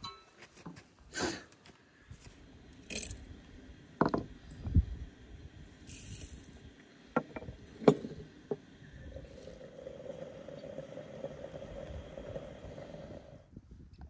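Metal scraping and clinking as the parts of a samovar are handled, with a few knocks and sharp clicks, and glass clinking as dried rose buds go into a glass teapot. From a little past the middle a steady even sound runs for several seconds, then cuts off.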